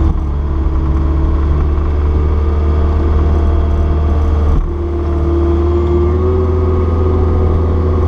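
Caterpillar 236B skid steer's diesel engine running steadily while pushing snow, with a brief dip in level about halfway through.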